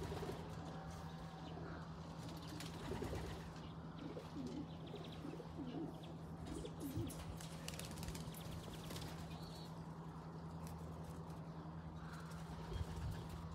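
Domestic pigeons cooing, a few short low coos in a row about four to six seconds in, with wings flapping as birds lift off and circle. A faint steady hum runs underneath.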